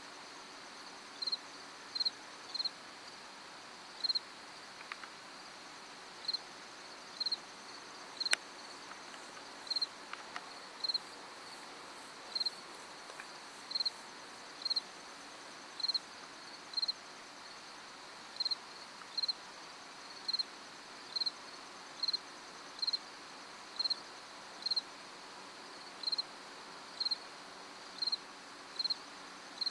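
Crickets chirping at night: one cricket gives short, high chirps about once a second, unevenly spaced, over a steady background hum of other insects.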